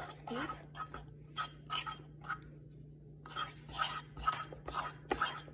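A spoon scraping and stirring thick peanut butter dough in a ceramic bowl, in a run of short scraping strokes with a pause of about a second a little past the middle.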